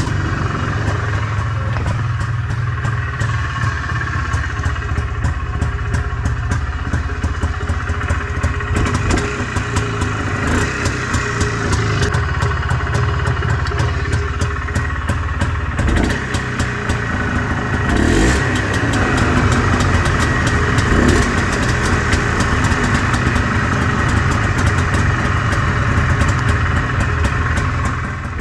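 Polaris Trail Blazer 250's two-stroke single-cylinder engine running with a fast, even pulse, freshly back in running order after a carburettor rebuild. It gets a little louder about two-thirds of the way through, and the sound cuts off suddenly at the end.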